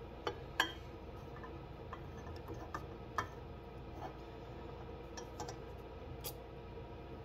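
Scattered light clicks and taps of a small plastic syringe being filled at the spout of a metal can of denatured alcohol and handled over glass cups. The sharpest click comes about half a second in.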